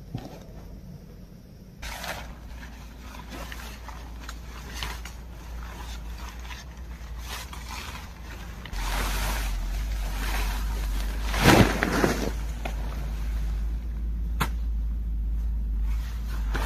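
Nylon tent rainfly rustling and crinkling in irregular bursts as it is pulled off the dome tent and gathered up, over a steady low rumble.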